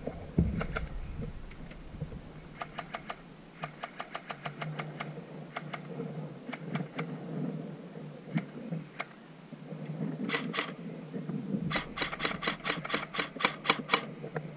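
Airsoft guns firing in several bursts of rapid clicking shots, with the longest burst, about two seconds of quick even shots, near the end.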